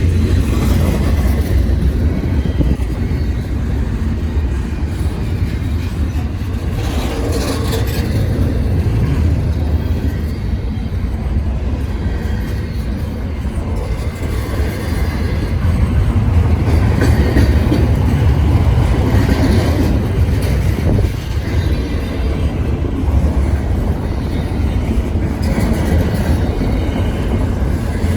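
Intermodal freight train rolling past close by: a steady heavy low rumble of the cars, with a few short knocks along the way.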